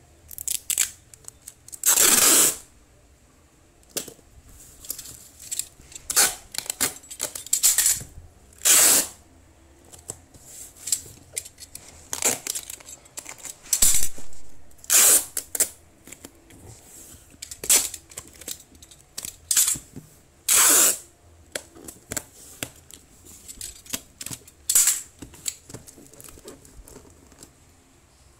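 Brown packing tape pulled off its roll in a series of short rips, a second or two apart, with taps and rustles of the tape being pressed onto a cardboard box.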